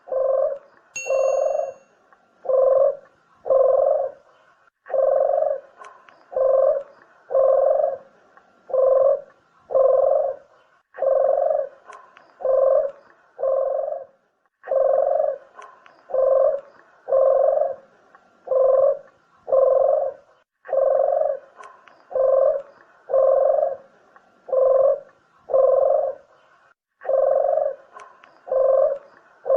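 Puter dove (ringneck dove) cooing: a steady series of short, low coos, about one to one and a half a second, in runs of several with a short pause between runs. It is the call used to lure doves in for trapping or shooting.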